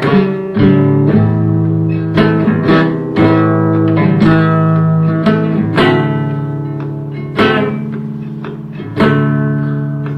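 Blues music: an instrumental break of plucked guitar notes and chords over a steady low note, with no singing.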